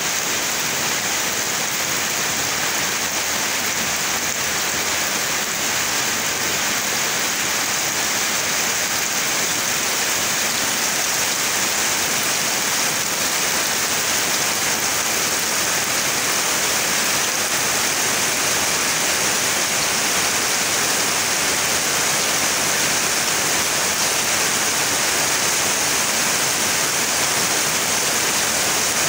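Heavy rain pouring steadily onto trees and palm fronds: a dense, even hiss with no let-up.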